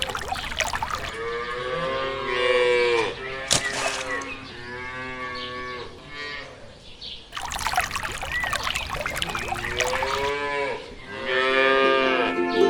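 Cattle mooing: about four long moos one after another, each rising and then falling in pitch.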